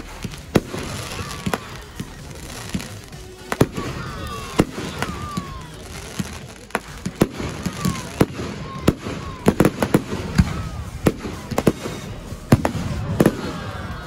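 Firework display: a run of sharp bangs from aerial fireworks bursting overhead, a few a second, coming thicker and louder in the second half with the loudest bang about twelve and a half seconds in.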